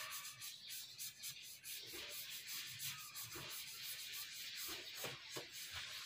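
A brush scrubbing wood finish onto a timber door panel in short, repeated rubbing strokes.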